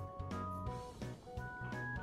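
Background music: a light instrumental tune of held notes stepping from one pitch to the next over a soft beat.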